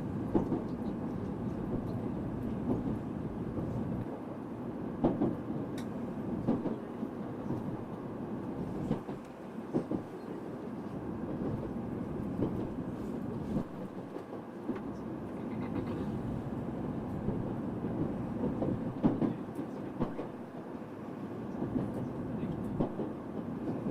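Tokaido Shinkansen Nozomi bullet train running on the rails, heard as a steady rumble with a few scattered clacks from the track.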